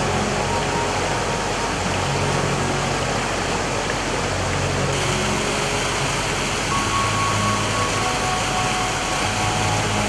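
A canyon stream rushing over rocks and small cascades: a steady, even rush of water that turns a little hissier about halfway through. Faint background music with long held notes sits underneath.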